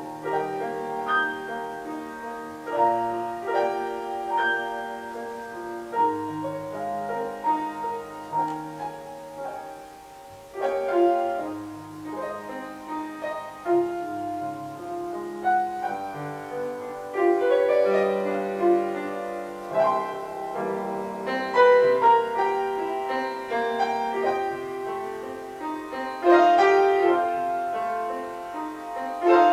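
Piano playing a slow hymn tune in held chords.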